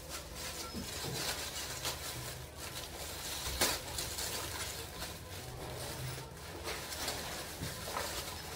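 Thin plastic carrier bags rustling and crinkling as takeout items are pulled out of them, with a sharper crackle about three and a half seconds in.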